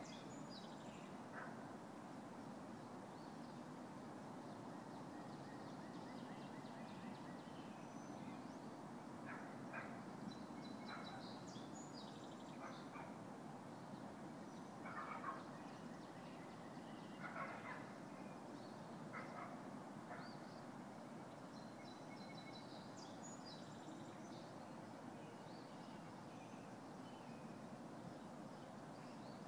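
Faint outdoor ambience: a steady low background rumble with birds calling now and then, and a few louder short calls past the middle.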